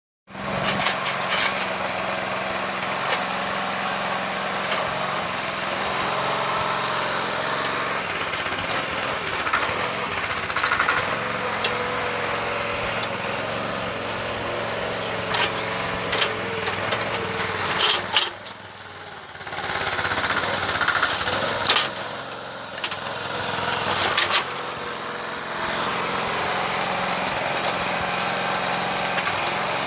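Mini backhoe's small engine running steadily, with sharp knocks and clunks now and then. A little past halfway the sound drops away for a couple of seconds, then comes back.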